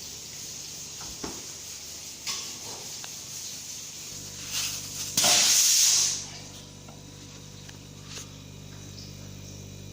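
A short burst of pressurised gas hissing from a refrigeration line or valve, lasting about a second, about five seconds in. Light clicks come before it, and a steady low hum starts about four seconds in.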